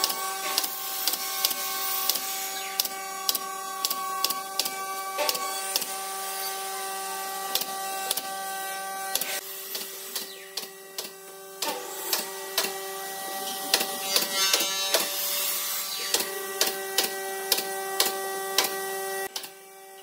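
Pneumatic brad nailer driving nails into pine boards: many sharp shots at irregular intervals, often a few in quick succession. A steady hum runs beneath them.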